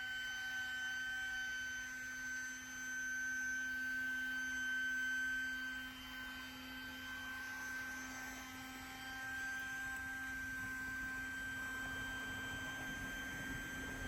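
Air pump motor running steadily with a high, even whine, inflating an airbed.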